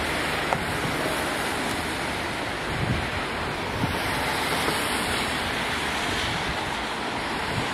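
Steady outdoor rushing noise of wind buffeting the microphone mixed with distant road traffic, with a few faint clicks.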